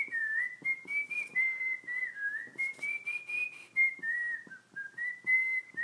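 A whistled tune: one clear melody moving up and down in short stepped notes, over a light, regular ticking beat.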